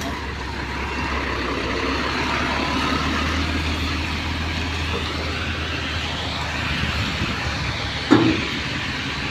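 Steady vehicle engine and road noise, with a brief loud sound about eight seconds in.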